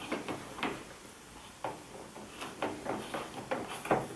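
Hand screwdriver turning a screw that holds an LCD TV's inverter board to the chassis: irregular short clicks and scrapes of metal on metal and plastic, with a quieter gap about a second in and more clicks near the end.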